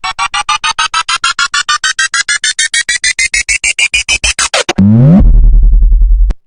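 Synthesized sound effect: a rapid pulsing synth tone, about nine pulses a second, rising steadily in pitch for nearly five seconds. It gives way to a short pitch sweep and a loud deep bass tone that cuts off suddenly near the end.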